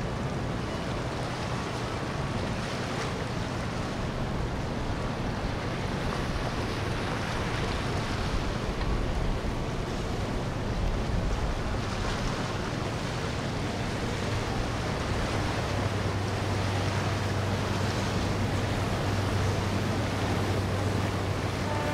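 Steady rush of wind and water with a boat engine's low drone underneath, which grows stronger in the last several seconds.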